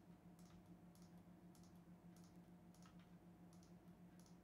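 Faint computer mouse clicks, a dozen or so at an uneven pace, as drum pad settings are clicked one after another in music software, over a low steady electrical hum.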